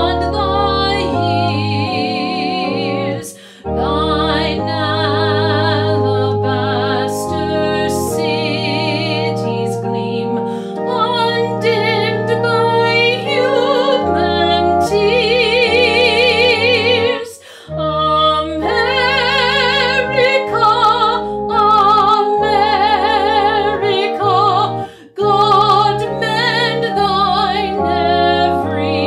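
A woman singing a hymn with a wide vibrato, accompanied by sustained chords on a two-manual organ. The music breaks off briefly between phrases three times, about three, seventeen and twenty-five seconds in.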